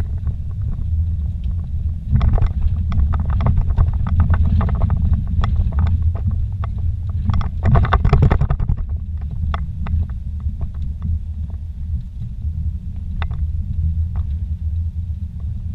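Inside a vehicle's cab on a rough dirt road: a steady low engine and road rumble, with bursts of rattling and clattering as it goes over bumps, about two seconds in and again around the middle, then occasional single knocks.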